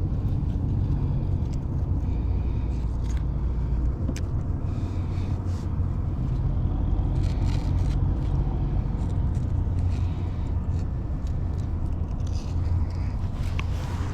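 Steady low rumble with scattered light clicks and taps over it.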